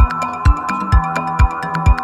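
Electronic dance music with a steady kick drum about twice a second, sharp hi-hat ticks between the beats, and held synthesizer chords.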